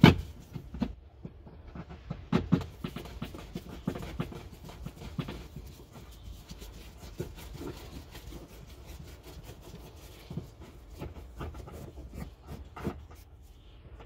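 Irregular small clicks and taps of a Torx driver working a T25 screw out of plastic car boot trim, over a steady low hum.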